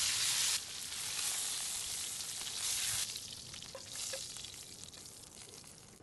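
Striploin steaks searing in hot fat in a cast-iron skillet, a steady crackling sizzle. The sizzle drops abruptly about half a second in and again about three seconds in, then fades away, with two faint clicks around four seconds in.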